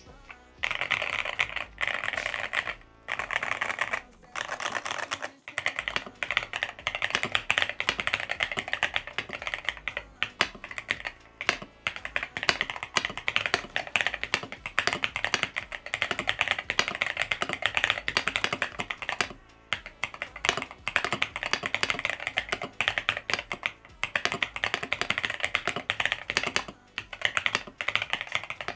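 Fast, continuous typing on an Aula F75 HE keyboard with Hall-effect magnetic switches: a dense run of keystroke clicks, broken by a few short pauses.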